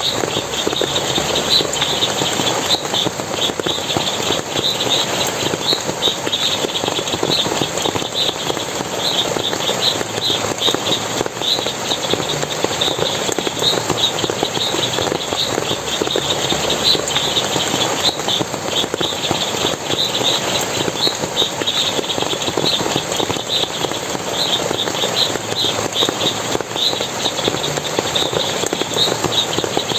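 Steady rush of splashing, flowing water in a forest, with a dense run of short, high chirps repeating throughout.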